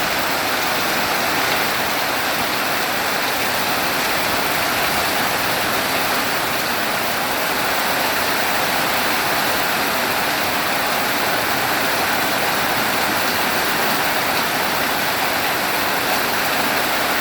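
Heavy rain pouring down steadily in a thunderstorm, a constant even hiss.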